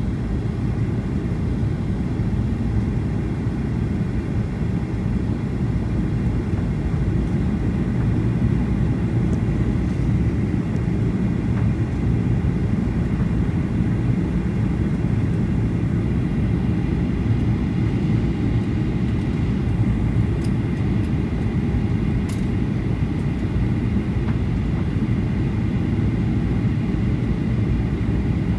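Steady low cabin noise of an airliner in flight, engine and airflow drone with a hiss that can be mistaken for rain.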